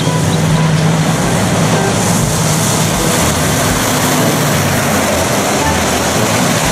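Steady truck engine noise: an even, dense rumble with a low hum underneath that does not change.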